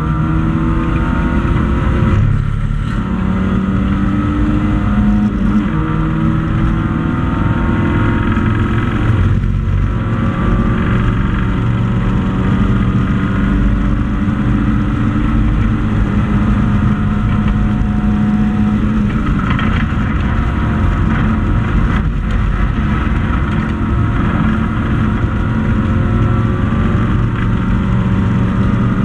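Hatchback race car's engine heard from inside the cabin, running hard at high revs with its note slowly rising through the gears, over road and wind noise. The note breaks off briefly about two and a half and nine and a half seconds in, and shifts again a little before twenty seconds in.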